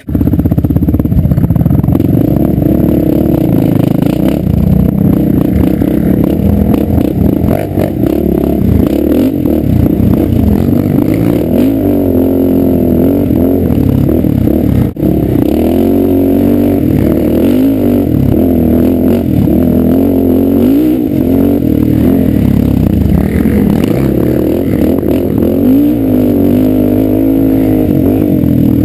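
Quad (ATV) engine running close to the microphone while riding a dirt trail, its pitch rising and falling as the throttle is worked, with one brief drop in loudness about halfway.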